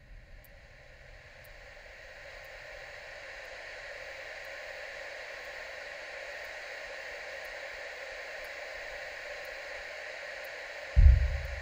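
A steady hiss fades in over the first few seconds and holds, then a sudden deep boom hits near the end and dies away.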